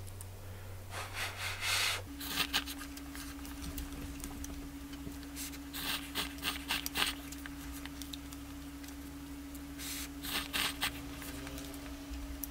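A person eating cup ramen, slurping noodles and broth in several short noisy slurps, the longest about a second in. A steady low hum comes in about two seconds in.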